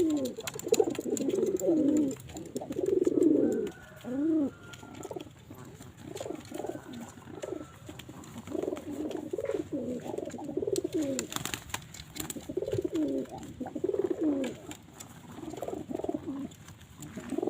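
Domestic pigeons cooing over and over, a string of low calls that each rise and fall in pitch, softer for a few seconds in the middle.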